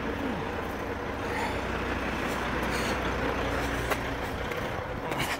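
Dual-rear-wheel truck's engine running steadily.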